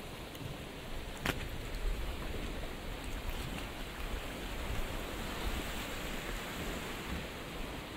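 Sea surf washing on the shore in a steady hiss, with one sharp click about a second in.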